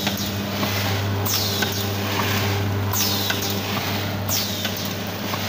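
Collar-type cup-filler vertical pouch packing machine running, a steady hum with a short falling swish repeating about every one and a half seconds as it cycles through each pouch.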